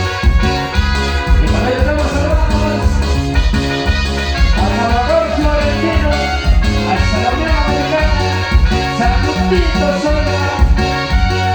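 Regional Mexican dance band playing an upbeat tune: a steady pulsing bass beat under a wavering lead melody that comes in about a second and a half in.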